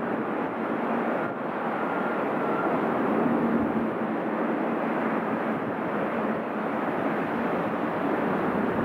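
Four-engine Airbus A340's jet engines at takeoff thrust as it lifts off and climbs away, heard from afar as a steady rushing noise.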